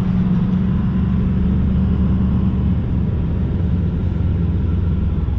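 Steady low drone of a pickup truck's 5.9 12-valve Cummins turbo diesel and its tyres on the road, heard from inside the cab at a moderate speed.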